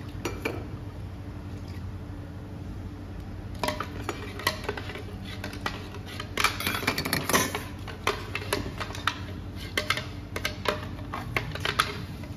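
Clinks and taps of kitchenware (a stainless-steel bowl and utensils knocking against a blender jar and a metal pot) while blended chili sauce is emptied and rinsed out of the jar with soy sauce. The taps start about four seconds in and come in irregular flurries over a steady low hum.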